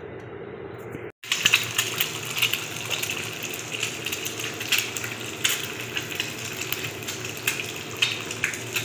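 An egg frying in oil in a flat nonstick pan: continuous sizzling with dense, irregular crackling pops, which starts about a second in after a short stretch of steady low hum.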